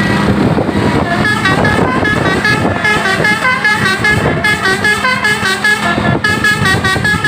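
A bus's multi-trumpet 'basuri' telolet horn playing a fast tune of short, changing notes, starting about a second in, over the running engine.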